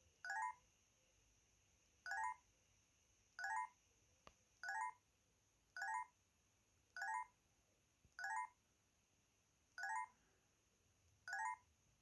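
Panasonic EB-X300 mobile phone's key tones from its speaker as the navigation key is pressed to scroll the menu: nine short chirps, each a few quick stepped notes falling in pitch, about one every 1.2 seconds.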